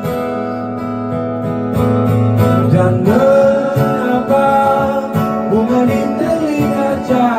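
Acoustic guitar strummed in a slow song, with a man's voice singing long, bending notes from about three seconds in.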